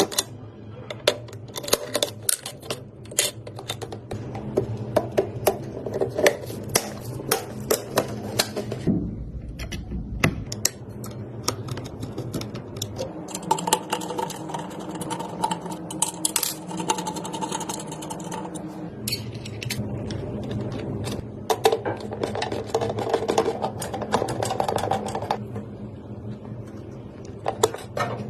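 Many sharp clicks, taps and small knocks of computer parts being handled, snapped and fitted together in a PC build, over a steady low hum.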